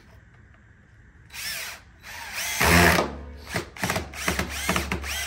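DeWalt cordless drill working into the wooden rail frame: a short burst about a second in, then from about two seconds a run of short trigger pulls, the motor whine rising and falling with each pull.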